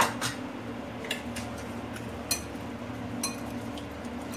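A spoon clinking against a white bowl while stirring boiled potato into yogurt: a handful of separate sharp clinks about a second apart, the first the loudest, over a steady low hum.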